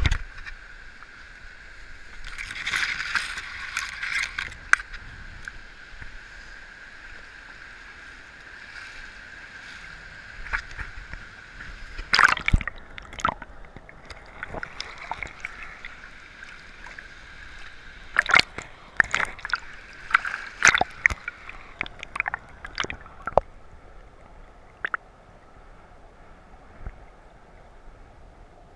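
River water sloshing and gurgling, heard muffled through a submerged waterproof action-camera housing. A steady rush runs under sharp knocks and clicks that come now and then, most of them in a cluster about two-thirds of the way through.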